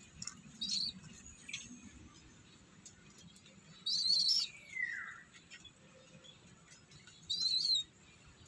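Three short, high-pitched chirping calls from a small animal, about a second in, about four seconds in and near the end; the middle one is the longest and slides down in pitch.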